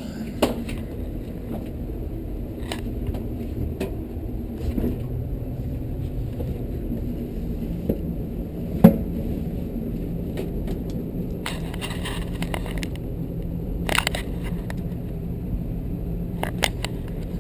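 Scattered clicks and knocks of handling, with a sharp knock about nine seconds in and a rustling scrape a little later, over a steady low hum.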